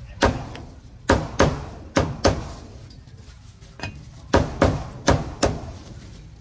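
Heavy meat cleaver chopping roast meat on a thick round wooden chopping block: about nine sharp chops, several in quick pairs.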